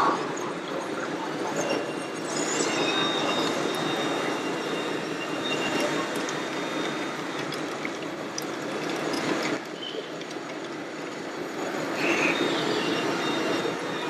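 Steady high-pitched whine of the electric motors and hydraulic pumps of radio-controlled model construction machines at work, with scattered small ticks, over the hubbub of a crowd.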